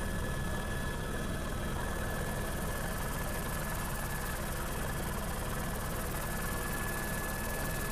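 Helicopter running steadily, heard from on board: a dense, even rotor and engine drone with a thin steady high whine over it.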